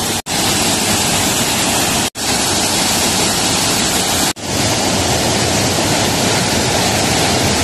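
Mountain waterfall pouring down a rock slab and a stream cascading over rocks: a steady rush of water, cut off for an instant three times.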